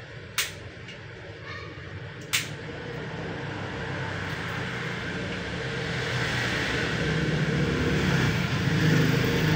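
Steady vehicle-like rumble that grows gradually louder, with two sharp clicks in the first few seconds.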